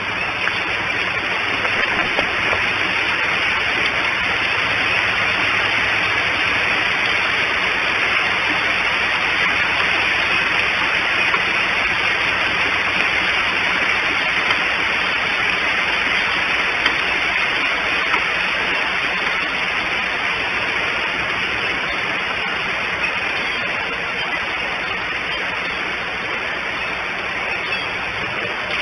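Steady hiss of rain falling around the nest on the outdoor nest-cam microphone, even throughout, with a few faint ticks.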